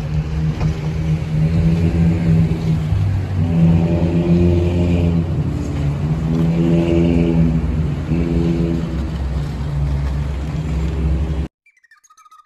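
Car engine and road noise heard from inside the cabin as the car drives off, the engine note rising and falling as it speeds up and eases off. It cuts off suddenly about a second before the end.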